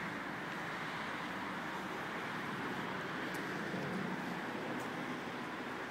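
Steady rushing street and traffic noise with no distinct events.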